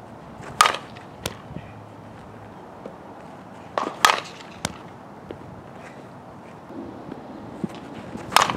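Softball bat hitting pitched balls: three sharp cracks about four seconds apart, the first two each followed by a fainter click about half a second later.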